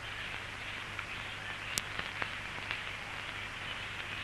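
Steady background hiss with a low, even hum, broken by a few scattered clicks and crackles, the sharpest a little under two seconds in: the noise of an old film soundtrack.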